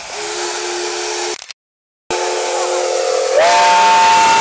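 P36 steam locomotive's whistle blowing over a loud hiss of steam as the engine pulls in. It starts on a steady low note, breaks off sharply for about half a second, sounds again, then about three seconds in jumps to a louder, higher note.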